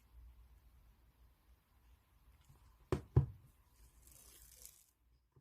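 Two quick knocks about a third of a second apart, about three seconds in, then a brief soft rustle.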